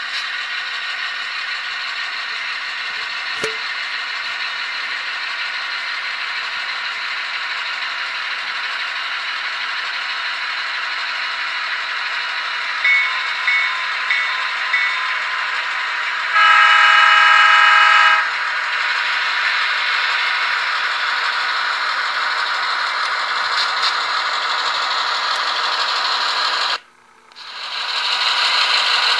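Sound decoder of an Athearn HO-scale GP38-2W model locomotive playing a diesel engine running steadily, thin with no deep bass, with four short tones about halfway through and then one horn blast of about a second and a half. Near the end the sound drops out briefly and swells back.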